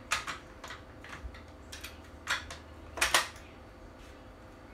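Tools and gun parts being handled on a wooden table: a string of short clacks and clinks of hard plastic and metal, the loudest a little after three seconds in.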